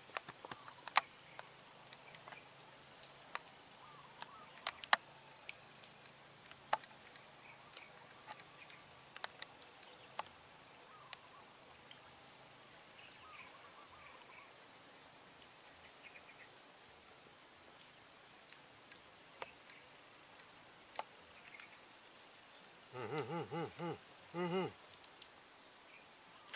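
Insects droning steadily in one high-pitched band, with a sharp tick now and then. Near the end there is a short run of rapid, repeated pitched calls.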